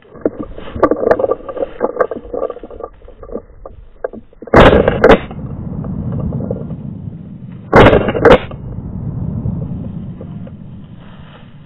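Brush and twigs crackling as a hunter pushes through the undergrowth. Then two shotgun shots about three seconds apart, each a very loud crack followed by a low rolling echo that fades over a couple of seconds.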